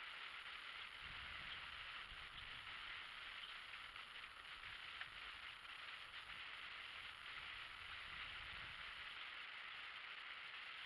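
Faint, steady outdoor hiss with a low rumble underneath from about a second in until near the end.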